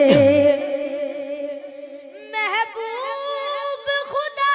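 A boy singing a naat into a microphone over a steady held drone. The previous phrase ends within the first half second. About two seconds in, he begins a long, wavering melismatic phrase.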